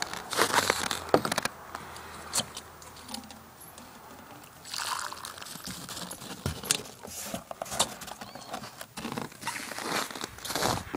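Irregular crunching and crackling of very cold, dry snow: footsteps and handling on a snow-covered deck, in uneven bursts with quieter gaps.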